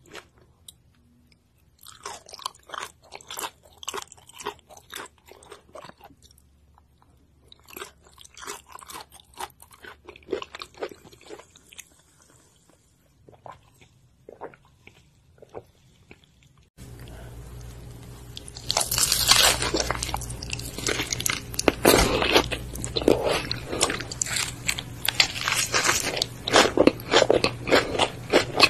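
Close-miked eating: wet chewing and mouth clicks over raw fish slices with rice noodles, in sparse clusters. About 17 s in it cuts to a louder, denser run of crunchy biting and chewing of a burger and fried food.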